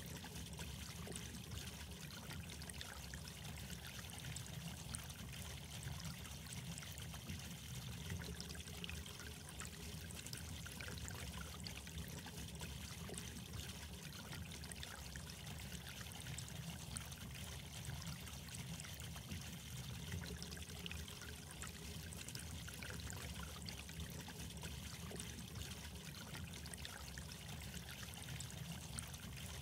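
Water trickling and babbling steadily, an unbroken stream with fine droplet-like ticks through it.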